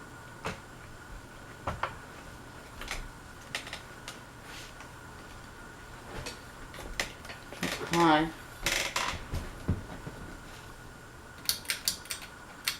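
Harbor Breeze Armory ceiling fan running, with a steady faint whine and scattered light clicks and clinks. The loudest sound is a short warbling tone about eight seconds in. Near the end comes a quick run of pull-chain switch clicks as the fan is switched off and then to high.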